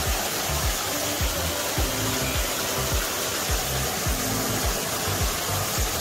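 Background music with a steady deep beat, about two beats a second, over the constant rushing noise of a waterfall.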